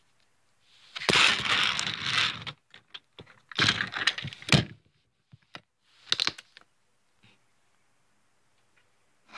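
Plastic toy vehicles clattering and scraping against the model layout close to the microphone, in three bursts: a long one about a second in, a second near the middle and a short one later, with scattered single clicks between.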